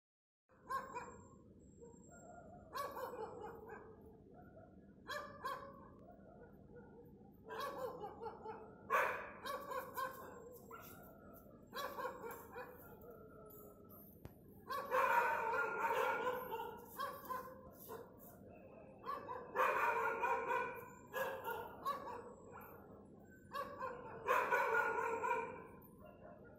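Dogs barking in bouts every few seconds, with louder runs of rapid barks in the second half.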